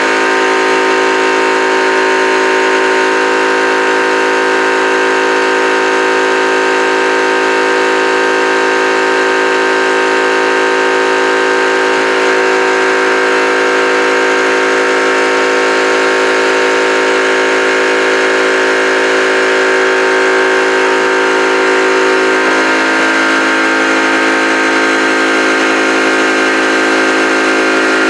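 Yong Heng-type portable high-pressure air compressor running steadily and really loud, a constant mechanical hum of many tones, as it fills a PCP air rifle's air reservoir.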